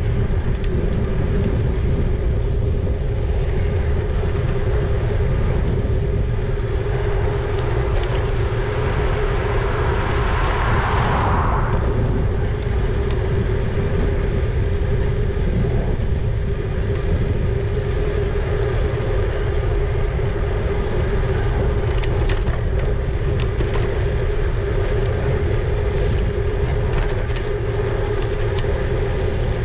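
Wind rumbling on the microphone of a moving e-bike, with a steady hum throughout. A vehicle rushes past about ten seconds in, and a few sharp clicks come in the second half.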